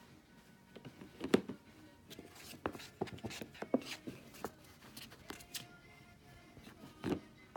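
A Siamese kitten pawing and clawing at a plastic storage box and its snap-on lid: a scatter of sharp plastic knocks and scrapes, the loudest about a second and a half in and another near the end, over soft background music.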